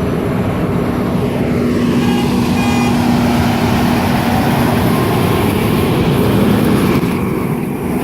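Road traffic passing close by: a loud, steady rush of engine and tyre noise with a droning tone that fades out about five seconds in.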